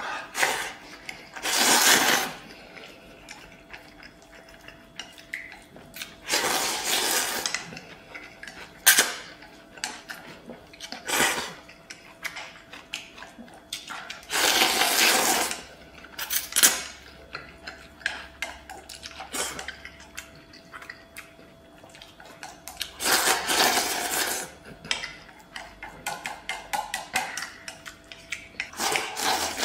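A person slurping noodles from a stainless steel bowl in loud sucks every few seconds, with chopsticks clicking and scraping against the metal bowl and chewing in between.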